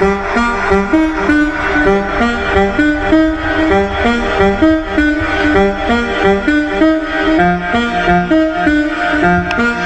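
Music playing through an LG OK99 vertical party speaker in a sound test: a stepwise melody of held, string-like notes over a bass line.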